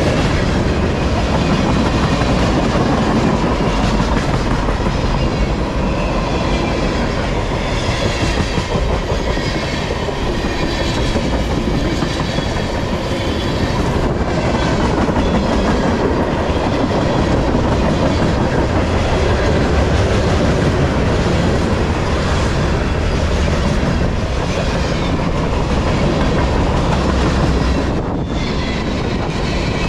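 Freight cars of a long mixed freight train rolling past close by: steel wheels on the rails, a loud, steady rolling noise.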